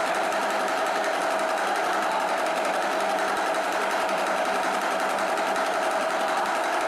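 A small hand-held puja instrument shaken rapidly and without a break, giving an even, dense rattle with a steady tone running underneath.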